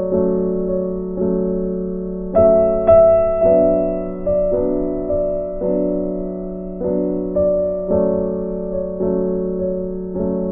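Slow background music on a keyboard: soft chords struck about once a second, each fading away, over a held low note.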